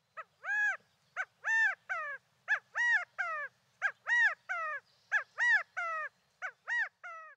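Repeated animal calls: clear pitched notes that rise and fall, in a three-note group (a short note, a longer arched note, then a falling note) repeated about every second and a half, six times over.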